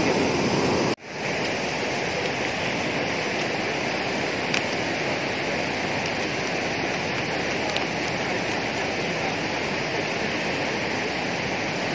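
Water rushing over a dam spillway: a steady, even rush, broken by a brief dropout about a second in.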